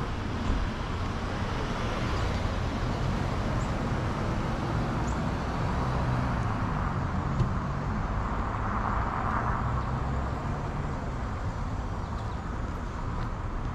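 City street traffic: the steady rush of cars driving past, with one vehicle swelling louder and fading away a little past the middle.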